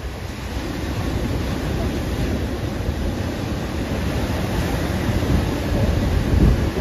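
Sea waves surging and breaking against a rock seawall, mixed with wind buffeting the microphone; the low rumble builds and is loudest near the end.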